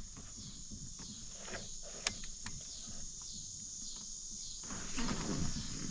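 Steady high-pitched chorus of crickets, with a single sharp click about two seconds in and some louder, lower shuffling near the end.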